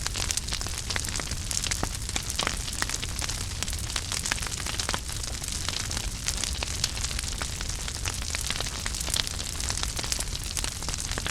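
Wood fire burning in a fireplace, crackling steadily with frequent sharp little pops over a low rumble and a hiss.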